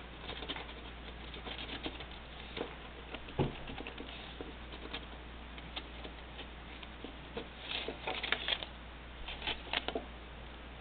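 Black Sharpie marker drawing on crumpled aluminium foil: faint, scattered scratchy strokes and foil crinkles, with a denser run of strokes about eight seconds in and again near ten seconds.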